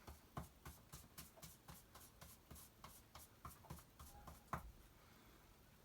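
Faint, quick taps of a paintbrush dabbing paint through a stencil onto wood, about three a second. There is a sharper tap a little before the end, then it goes quieter.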